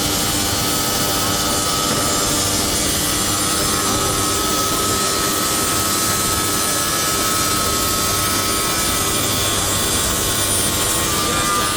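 Holztek HT-R1SM CNC router's saw-blade spindle running steadily while trimming a fire door: a loud, even machine rush with a high whine on top.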